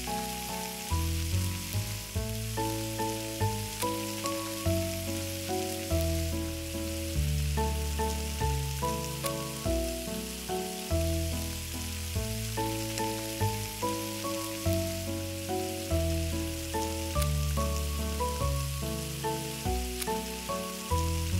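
Bread frying in oil on a small stone griddle, with a steady sizzle, over background music with a melody and bass notes.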